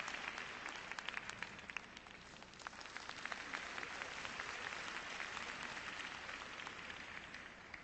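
Arena crowd applauding, a dense patter of many hands clapping that fades near the end.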